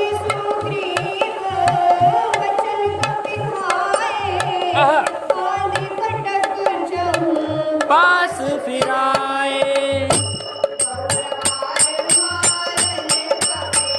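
Indian devotional song accompaniment: a tabla-style drum beating about twice a second under a wavering melody. About ten seconds in, the backing changes to a brighter rhythm with sharp, regular ticks.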